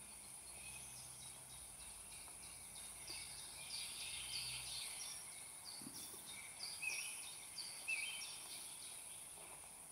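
Faint outdoor ambience: a small bird calling in a run of short, repeated chirps from about three seconds in, over a steady high hiss.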